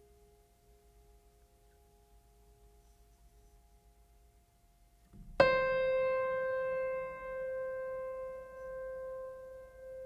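Background music: a faint held tone fades away, then about five seconds in a single piano note is struck loudly and left ringing, slowly dying away.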